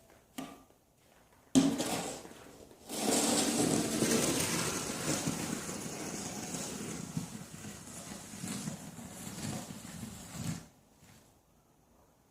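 Snow shovel knocking down sharply once, then a long scrape of the blade pushing snow for about eight seconds before it stops abruptly.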